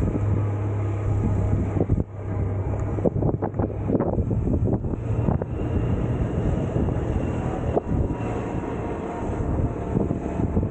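Suzuki Burgman 650 maxi-scooter's parallel-twin engine running while riding at low speed, with wind noise on the microphone. The steady engine hum eases off about two seconds in, and the sound turns rougher and more uneven after that.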